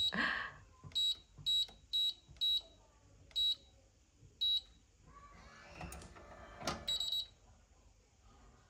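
Electronic room safe's keypad beeping six times as a code is keyed in, unevenly spaced, followed by a short mechanical whirr and a longer beep about seven seconds in.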